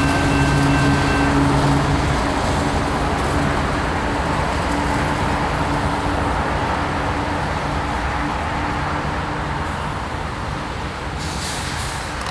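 Diesel locomotive at the rear of a loaded BNSF coal train passing and pulling away: a steady rumble of engine and wheels on the rails, with a low engine hum that fades as it recedes. A short hiss comes near the end.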